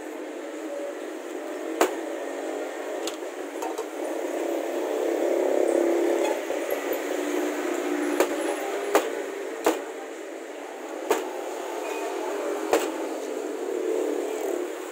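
Cleaver knocking on a plastic cutting board as braised meat and tumbong are cut: several sharp, irregularly spaced chops over a steady background hum.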